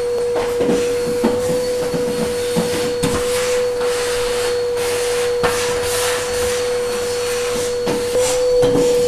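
Canister vacuum cleaner running steadily with a constant whine and hiss of suction, its hose working along a floor grille. Scattered short knocks and clatter are heard over it.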